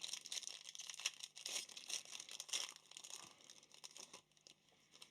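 Trading-card pack wrapper being torn open and crinkled, a dense run of crackling and small snaps that thins out to a few clicks near the end.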